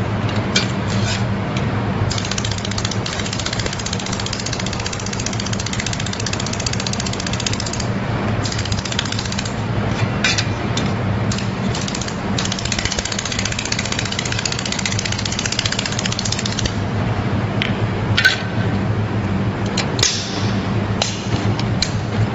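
Handheld fiber laser welder firing on stainless steel sheet: a rapid, even buzzing crackle over a steady low hum, with a few sharp clicks near the end.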